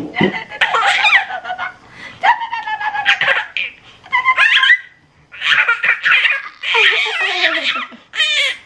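A baby laughing in about six high-pitched bursts.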